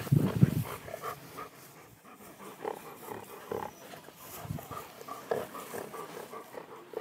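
Young Doberman pinschers playing together over a rubber toy: scattered short, soft dog noises, with a louder low sound right at the start.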